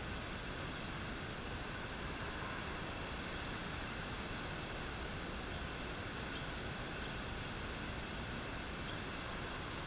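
Steady light rain falling, an even hiss, with an insect trilling high and continuously, broken by short regular gaps.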